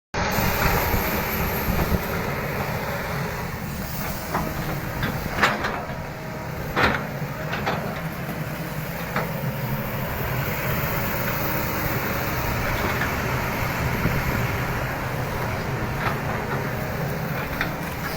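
Excavator's diesel engine running steadily, with a few sharp knocks, the loudest about five and a half and seven seconds in.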